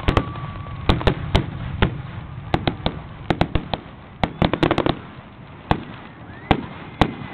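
Fireworks display: aerial shells bursting in a series of sharp bangs and pops. Some come in quick clusters, and they thin out over the last couple of seconds.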